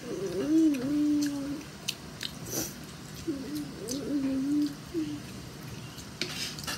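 A child humming with his mouth closed while chewing food, in two low wavering phrases each about a second and a half long. Between them, a few light clinks of a spoon and fork on a plastic plate.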